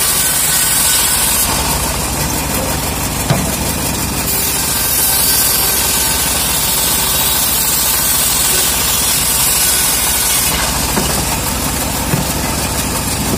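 Homemade band sawmill running steadily and ripping a teak log into planks. Twice the high hiss of the cut drops away for a few seconds while the blade runs free, with a light knock in each gap.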